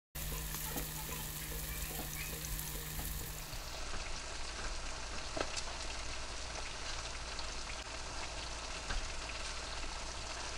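Cornish hens roasting in a toaster oven, fat and juices sizzling in the pan with a steady hiss and scattered small pops. A low steady hum drops out about a third of the way in.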